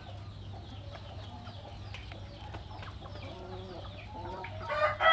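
Chickens clucking softly in a yard. A louder, fuller rooster call comes near the end.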